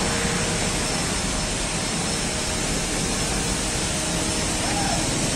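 Steady rush of road traffic passing close by: car and pickup engines and tyre noise.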